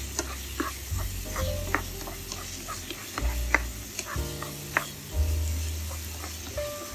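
Spatula stirring crumbled tofu and onion in a hot nonstick frying pan: the food sizzles while the spatula scrapes and knocks against the pan in many short clicks.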